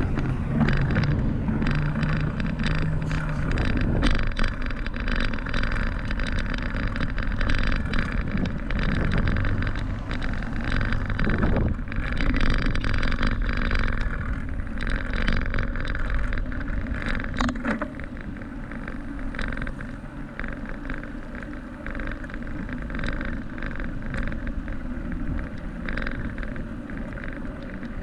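Riding noise from a camera on a moving bicycle: wind rushing over the microphone and tyres running on asphalt, with frequent small clicks and rattles from bumps in the path. It gets somewhat quieter a little past halfway.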